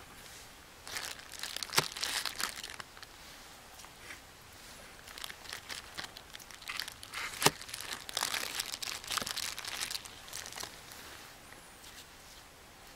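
Butter wrapper crinkling in the hand in several bursts as butter is scooped out with a knife, with two sharp clicks among them.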